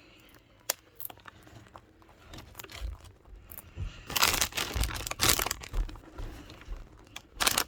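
A treat bag crinkling in bursts, with scattered small clicks at first and the loudest crackling about four to five and a half seconds in, then again near the end.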